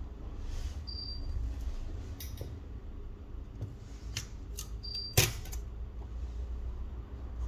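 Small clicks and taps of hand tools and plastic parts during a smartphone disassembly, with one much louder sharp click about five seconds in. Two short high-pitched tones sound, and a steady low hum runs underneath.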